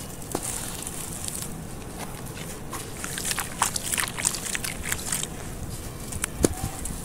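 Wet sand-cement and charcoal mud squeezed and crumbled by hand in a basin of muddy water: soft squelching with scattered gritty crackles that bunch up around the middle, and a sharp click near the end.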